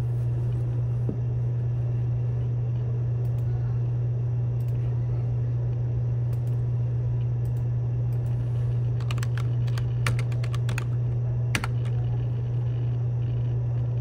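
Typing on a computer keyboard: scattered key clicks, with a quick run of them about nine to eleven seconds in, over a steady low hum that is the loudest sound.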